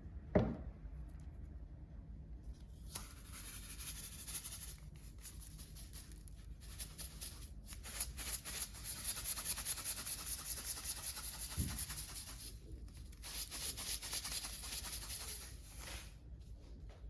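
Rapid rasping, rubbing strokes, steady for long stretches with a short pause about two-thirds of the way through. A sharp knock sounds just after the start and a dull thump a little past the middle.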